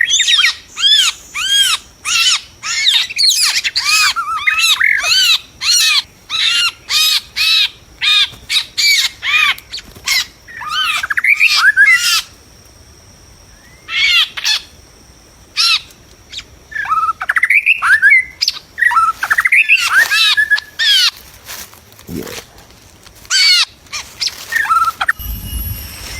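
White-rumped shama calling: a fast run of short, arched, whistled notes, breaking off for a second or two partway through, then resuming more sparsely. A low rumble comes in near the end.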